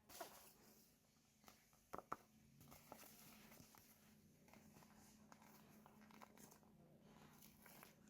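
Near silence with a few faint clicks and taps, two close together about two seconds in: small plastic toy pieces and packaging being handled.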